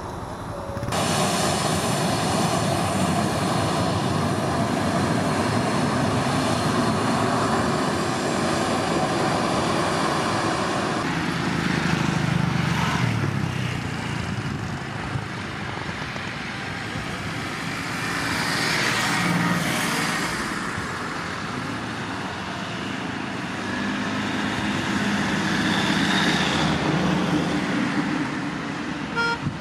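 Boeing 737-800's CFM56-7B turbofan engines running at taxi power: a steady jet roar with a high whine, swelling and easing several times as the airliner taxis.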